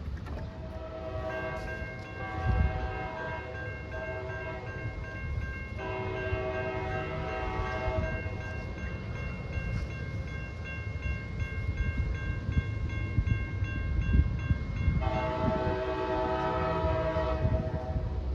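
Locomotive multi-chime air horn sounding several long blasts, over the low rumble of a passing train. A faster, regularly pulsing ringing tone runs alongside the horn, typical of a bell.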